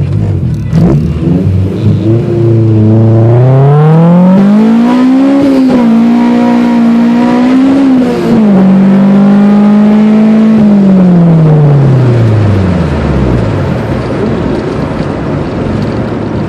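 Honda B16 DOHC VTEC four-cylinder in a hatchback accelerating at full throttle: the revs climb steeply to high rpm, with two quick upshifts about five and eight seconds in. The revs then hold briefly and fall away as the car comes off the throttle near eleven seconds.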